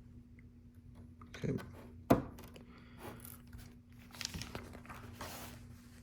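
Small plastic LEGO pieces handled by hand: one sharp click about two seconds in, then light rustling and clicking.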